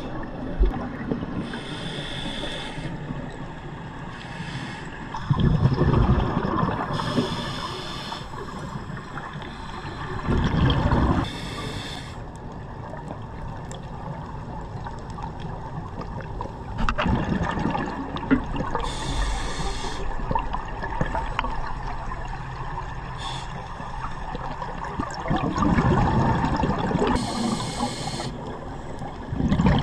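Scuba regulator breathing heard underwater: a short hissing inhale through the regulator, then a louder rush of exhaled bubbles. Several slow breaths come a few seconds apart over a steady watery wash.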